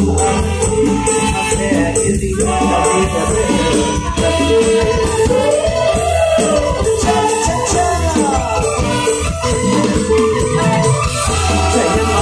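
Live Isan mor lam band music with a steady bass-heavy beat and rattling shaker percussion, a melodic line gliding up and down over it in the middle.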